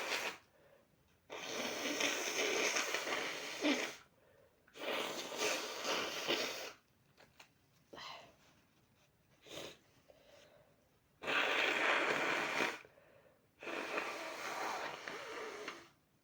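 A person's sneezing fit, brought on by a body spray they are mildly allergic to: four long, breathy gasping sneezes of about two seconds each, with two short sniffs between the second and third.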